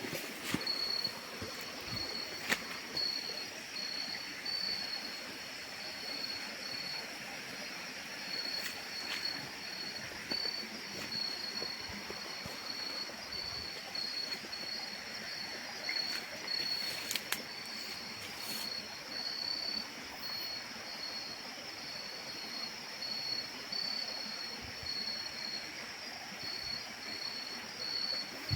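Night insects, crickets among them, chirping steadily in a high-pitched pulsing trill, with a few short knocks now and then.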